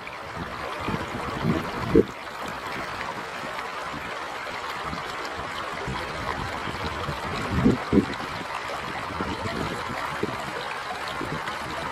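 River water flowing steadily, with brief low thumps about two seconds in and again near eight seconds.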